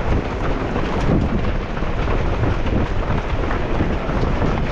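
Strong wind buffeting the microphone: a loud, steady rumbling noise with no voices.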